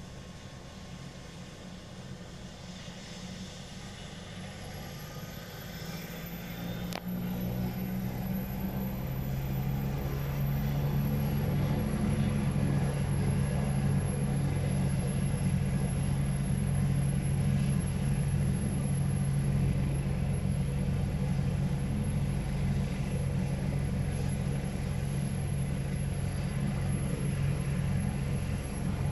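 Ambulance helicopter's turbine engine spooling up. A high whine climbs in pitch in the first few seconds, then the rotor beat builds and the sound grows louder. It settles into a steady running whine and rotor beat about eleven seconds in.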